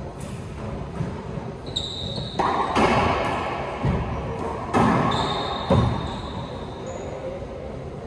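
Racquetball rally in an enclosed court: the ball cracking off racquets and walls, several sharp hits that echo around the court, with sneakers squeaking on the hardwood floor twice.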